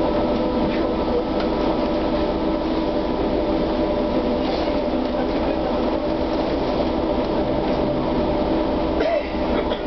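Inside a SOR TN12A trolleybus: the electric drive and equipment give a steady hum and whine with several constant tones over a rumbling noise. A single knock comes about nine seconds in.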